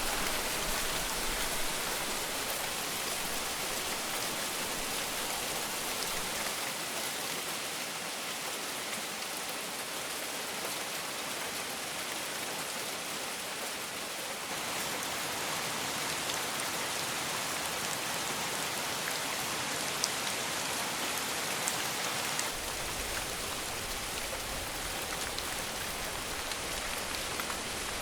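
Heavy rain falling steadily, a dense even hiss of drops on the ground, with a few sharper single drop ticks about two-thirds of the way through.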